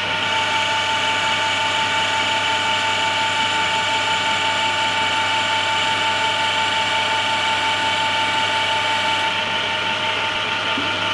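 Homemade CNC conversion of a Belfex BF 520C lathe turning aluminium on a 1 mm deep pass (2 mm off the diameter): a steady mechanical whine from the machine's motors as the cut runs.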